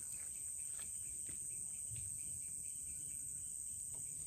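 A chorus of insects makes a steady, high-pitched drone that does not vary, with a faint low rumble of ambient noise underneath.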